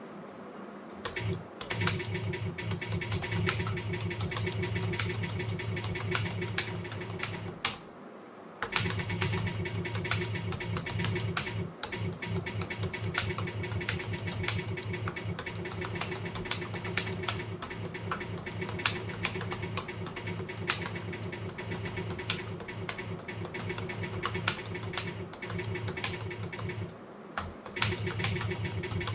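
Fast, continuous typing on a computer keyboard: a dense stream of key clicks, broken by two brief pauses, once about a third of the way in and again near the end.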